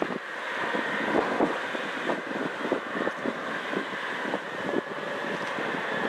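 Gusty wind buffeting the microphone over the steady rush of a Boeing 777-200ER's jet engines as the airliner rolls along the runway after landing.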